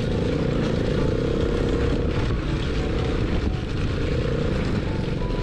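Off-road go-kart engine running steadily under throttle while driving over a dirt trail, heard from the seat with a rumble of wind and terrain noise.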